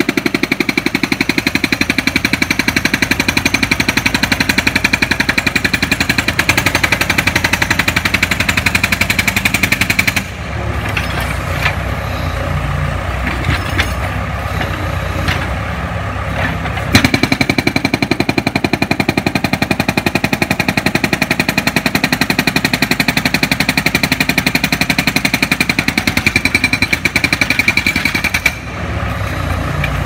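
Backhoe-mounted hydraulic breaker hammering concrete with rapid, even blows. It stops about a third of the way in while the machine's engine runs on with a low rumble, starts again several seconds later, and stops again near the end.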